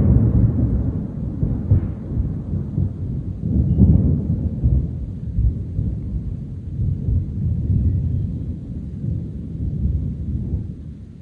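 Thunder rumbling in a long low roll that swells again about four seconds in and dies away near the end.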